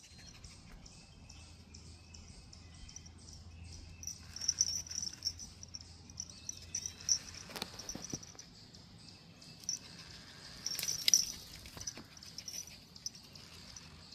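Insects chirping in a steady, fast-pulsing high-pitched chorus, with a few sharp clicks about halfway through and again near the end.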